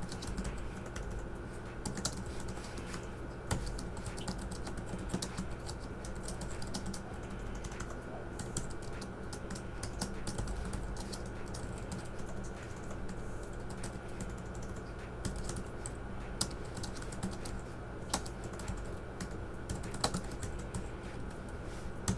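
Typing on a Choetech wireless Bluetooth keyboard: a continuous run of irregular key clicks, over a steady low hum.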